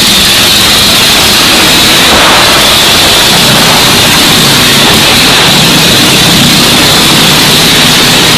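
Vintage motorcycle engine running hard as the bike circles the wooden wall of death. The sound is loud and heavily distorted, a dense hiss over a faint, wavering engine note.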